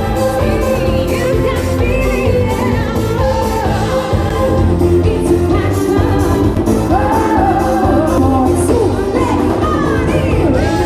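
Live pop music at a concert, loud through a PA with a heavy bass beat and a singer's voice over it, with some crowd noise.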